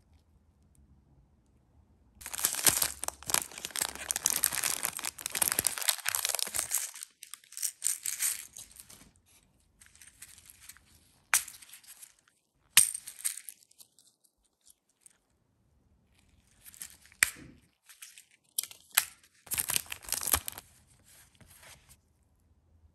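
Plastic packaging crinkling and rustling as nail-art supplies in small plastic bags and cases are handled with plastic-gloved hands, in two main bouts, with a couple of sharp plastic clicks in between.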